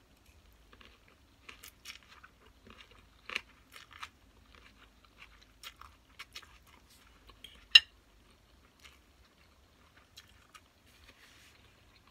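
A person biting and chewing crunchy raw cucumber close to the microphone, with irregular crunches and mouth sounds. One sharp, louder click comes a little under eight seconds in.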